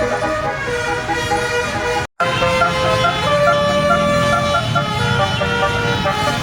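Bus 'telolet' Basuri multi-tone horn playing a tune of held notes that step up and down in pitch. The sound cuts out for a moment about two seconds in.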